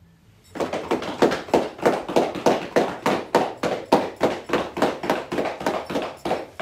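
A group of people clapping in unison, a ceremonial salute of acclaim to a newly installed Provincial Grand Master. About twenty claps at a steady beat of roughly three a second, starting about half a second in.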